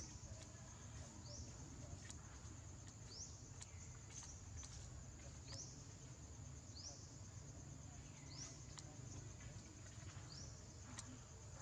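Faint forest ambience: a steady high-pitched insect drone, with a bird's short rising call repeated every one to two seconds and a low steady rumble underneath.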